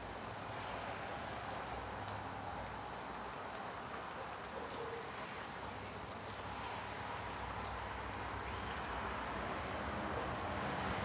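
A cricket trilling steadily, a continuous high pulsing note, over the even hiss of a gas burner heating a pot of curry.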